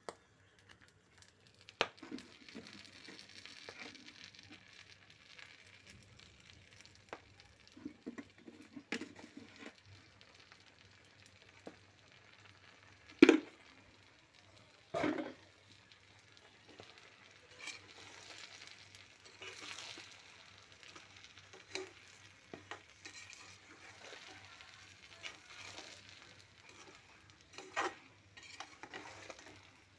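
Whole red chilies and garlic cloves frying in oil in a pan: a soft, uneven sizzle as a spatula stirs them, scraping and knocking against the pan, with two sharp knocks about halfway through.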